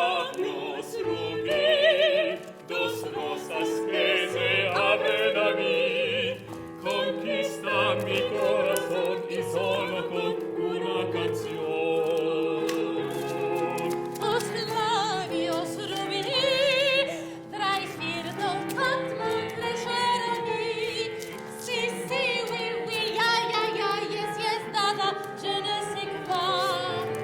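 A woman's operatic voice singing with a wide vibrato over piano accompaniment, the piano's low notes marking a regular beat about once a second.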